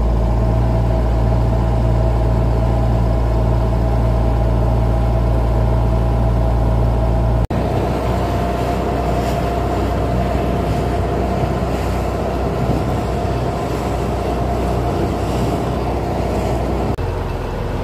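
Motorboat engine running steadily under way, a loud drone with a deep hum and a steady mid-pitched whine, over water and wind noise. It cuts out for an instant about seven and a half seconds in and resumes with less bass.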